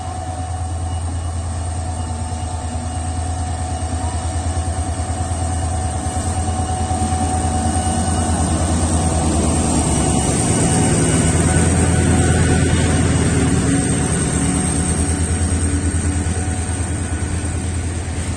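Bangladesh Railway diesel locomotive pulling an intercity express train of passenger coaches past. The deep, steady engine throb grows louder, peaks as the locomotive goes by about eleven to thirteen seconds in, then eases as the coaches roll past.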